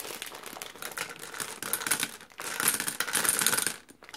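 Peanut M&Ms poured from a bag into a glass gumball machine globe: a dense rattle of hard candies clicking against the glass and each other, with the plastic bag crinkling. The rattle is heaviest from about halfway through until just before the end.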